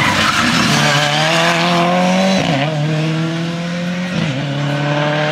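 Ford Sierra Cosworth rally car's turbocharged four-cylinder engine under hard acceleration. The pitch climbs steadily, drops sharply at an upshift about two and a half seconds in, and again at a second upshift about four seconds in.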